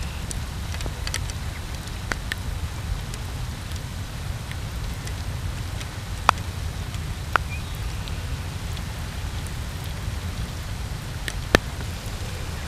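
Steady rain, an even hiss over a low rumble, with a few sharp ticks of single drops.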